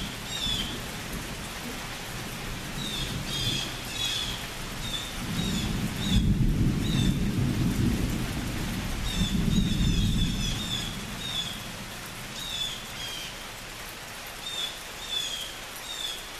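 Thunder rumbling low in two long swells, the first about five seconds in and the second about nine seconds in, over a steady hiss of rain. Short high chirps repeat throughout.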